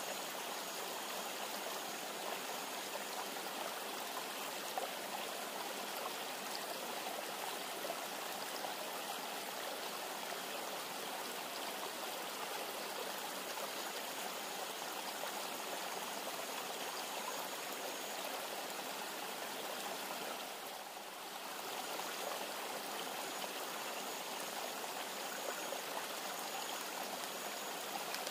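Steady rush of a flowing river, dipping briefly about two-thirds of the way through.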